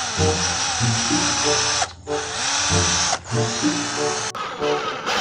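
A small battery-powered tool motor, like a toy electric drill, whirring in three runs that start and stop, over background music.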